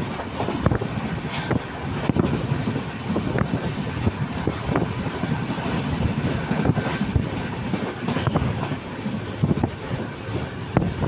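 Passenger train running at speed, heard from inside the carriage: a steady low rumble of the wheels on the track, with frequent sharp, irregular clacks.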